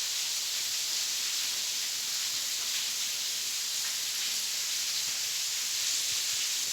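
Waterfall inside a cave: a steady hiss of falling water and spray.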